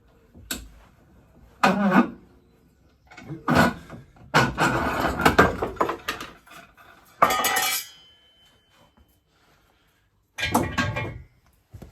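Metal tools and parts clinking and scraping in several separate bursts while a polyurethane bush is pressed into an MX-5 upper control arm; one piece rings briefly after a clink about eight seconds in.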